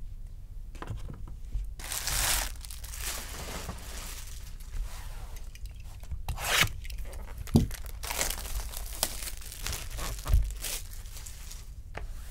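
Foil wrappers of Topps Chrome baseball card packs being torn open and crinkled, with cards handled on the table. The loudest rip comes about two seconds in, and more short rips and crackles follow.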